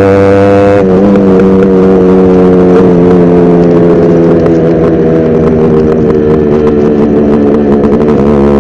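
Yamaha RX100's two-stroke single-cylinder engine running steadily under way, its pitch dipping briefly about a second in and again near the end.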